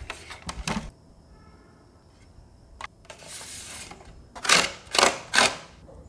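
Hands handling a plastic RC model truck and a small stick-on license plate: scattered clicks and rustles, then three louder scraping rustles about half a second apart near the end.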